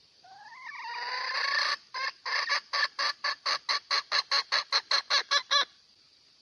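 Junglefowl hen calling for a cock: one drawn-out rising call, then a quick run of clucks, about five a second, growing louder before stopping.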